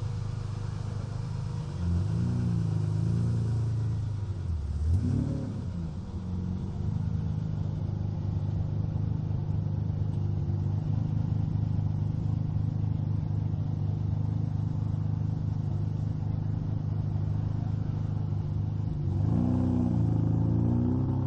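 Ferrari 456 GT's 5.5-litre 48-valve V12 idling steadily through its exhaust. It is revved briefly about two seconds in and again around five seconds in, then blipped several times in quick succession near the end.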